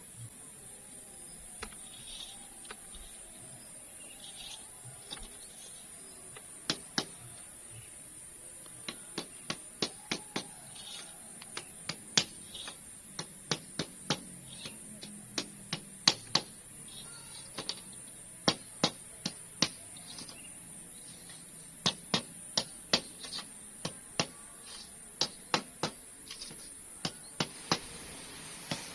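Sharp knocks from hand-tool work on bamboo, coming in irregular runs of about two a second, over a steady high drone of insects.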